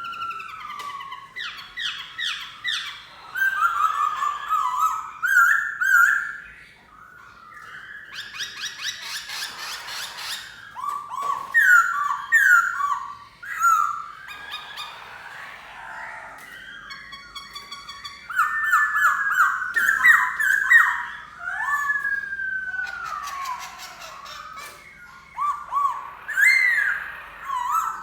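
Black-throated laughingthrush singing: a long, varied run of clear whistled phrases, gliding notes and quick trills, broken by short pauses.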